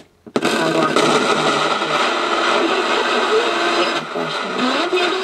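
Realistic SCR-3 boombox radio switched on about a third of a second in, giving a loud, steady hiss of static as it is tuned between stations, with faint traces of a broadcast under the noise.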